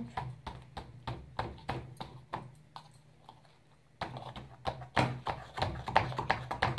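Quick light taps of a spoon on a plastic funnel, knocking baking soda through it into a plastic bottle, about three or four taps a second. They pause for about a second past the middle, then come faster and louder.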